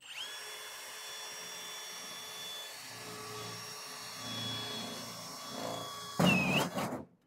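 Cordless drill running at a steady whine against sheet-metal ductwork, with a rumble as it works the metal. Near the end it gets louder and its pitch sags briefly under load, then it stops.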